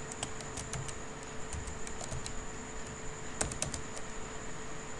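Computer keyboard keys clicking as a word is typed: a few scattered keystrokes, then a quick run of several about three and a half seconds in, over a faint steady hum.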